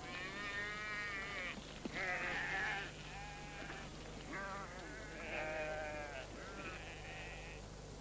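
A flock of sheep bleating, about six wavering calls one after another, some overlapping, the loudest about two seconds in.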